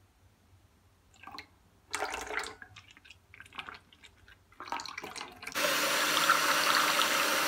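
Fresh cream pouring and splashing into a stainless-steel bowl, then about five and a half seconds in an electric hand mixer starts and runs steadily, its beaters whisking the cream to whip it.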